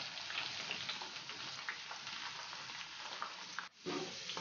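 Cornflour-coated sweet corn kernels deep-frying in hot oil in a kadhai: a steady sizzle with scattered sharp pops as the kernels spatter. The sound cuts out for a moment near the end.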